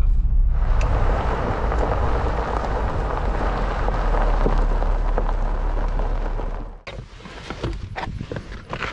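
Car tyres crunching over loose gravel as the vehicle rolls slowly along, under a low rumble. About seven seconds in the crunching and rumble stop as the car halts, and a few clicks and knocks follow as the car door is opened.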